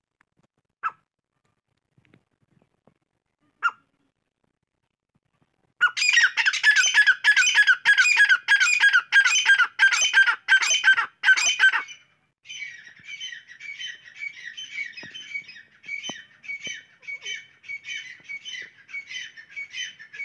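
Grey francolin (teetar) calling: two short single notes, then a loud run of harsh, evenly repeated calls, a little over two a second, for about six seconds. This gives way to a softer series of similar calls that carries on to the end.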